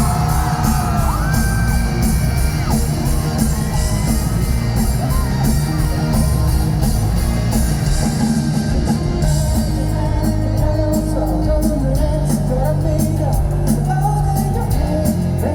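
Live rock band playing loudly through a festival PA: drums, bass and cymbals, with a voice singing over it. The cymbals grow busier about halfway through.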